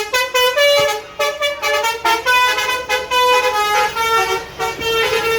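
Basuri 'telolet' multi-tone musical horn playing a tune of short and held notes that step up and down in pitch, with a couple of brief breaks.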